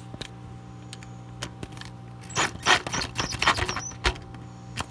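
Metal clicks and clinks of a socket wrench and extension on a bolt of an oil filter adapter being tightened. There is an irregular cluster of quick clicks in the middle and two sharper single clicks near the end, over a steady low hum.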